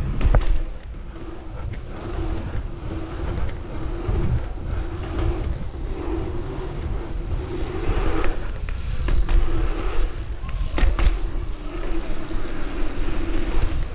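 A mountain bike being ridden through an indoor bike park: tyres rolling with a constant low rumble, sharp knocks from landings or impacts about 4 and 11 seconds in, and a steady hum that comes and goes.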